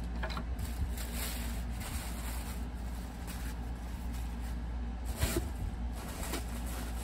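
Paper and tissue paper rustling and crinkling as a box is unpacked by hand, in a few brief soft rustles over a low steady hum.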